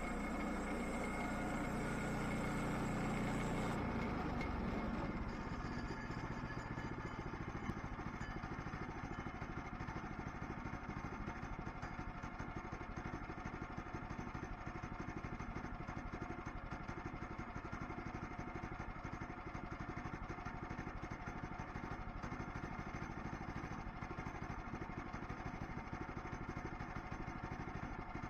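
An engine running steadily. About four seconds in, a higher hiss drops away and the engine carries on slightly quieter.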